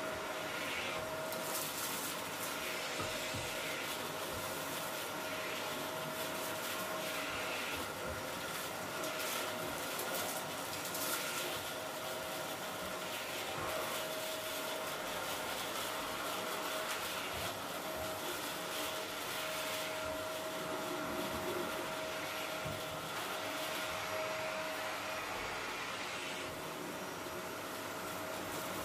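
Canister vacuum cleaner running with a steady motor whine, its floor tool pushed back and forth over a thick shag rug, the suction hiss swelling and easing with each stroke.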